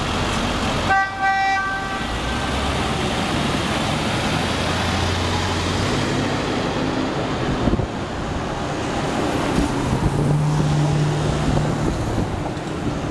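Downtown street traffic: vehicle engines running and tyres on the road, with a short horn toot about a second in.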